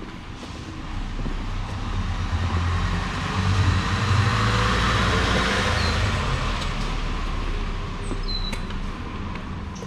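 A road vehicle passing close by in the street: a low engine rumble and tyre noise build up, peak about four to five seconds in, and fade away.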